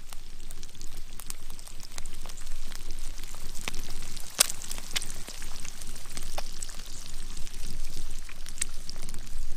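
Eggs frying in two cast iron skillets over a campfire: a steady sizzle with frequent small pops and crackles, and one sharper pop about four and a half seconds in.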